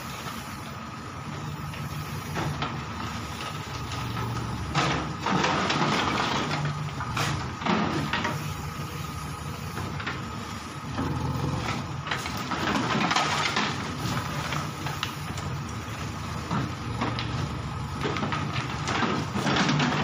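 Diesel engine of a JCB excavator running steadily while its arm breaks down a brick house wall, with several louder spells of crashing brick and masonry.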